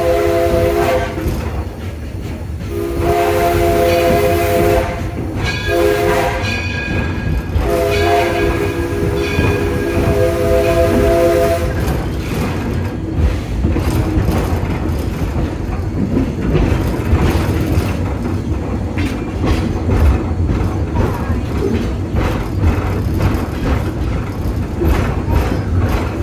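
A steam locomotive's chime whistle sounds a multi-note chord in four blasts, long, long, short, long, the standard signal for a grade crossing. From about twelve seconds in, only the running train is heard, a steady rumble with rail clatter.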